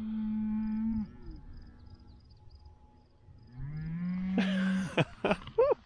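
Cows mooing: two long calls, one right at the start and another about three and a half seconds in, each rising a little at its onset and then held steady.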